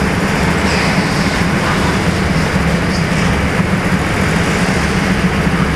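Four-stroke petrol go-kart engines running steadily at low speed with an even drone, with no revving.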